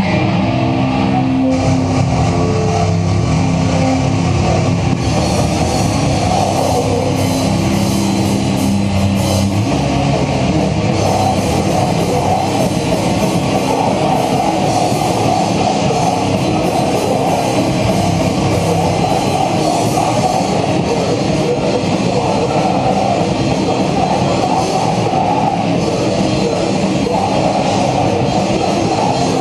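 Hardcore/thrash metal band playing live: distorted electric guitars, bass and a pounding drum kit, with the cymbals coming in about five seconds in.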